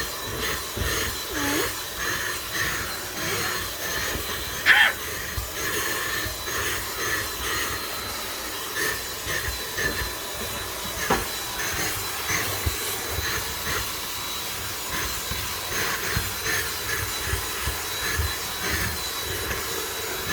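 Dyson vacuum cleaner running steadily with a thin high whine over its hiss, used to suck loose hair from a cat's coat; its sound swells and dips again and again, with one brief louder sound a little under five seconds in.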